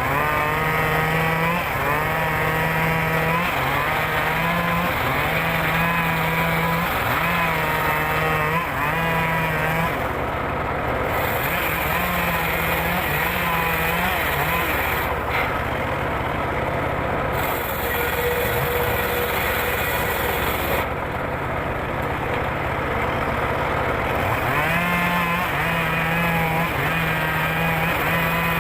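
Engine-driven circular saw rig (serkel) running while ripping wood. Its engine note wavers up and down over and over as the blade takes the load, and goes steadier and rougher for a stretch in the middle.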